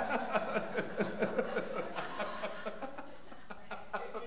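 Audience laughing, loud at first and dying down.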